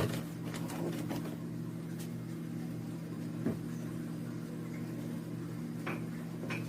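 Steady hum of a small electric motor, an electric mixer beating bread batter as flour is added, with a few light knocks against the bowl.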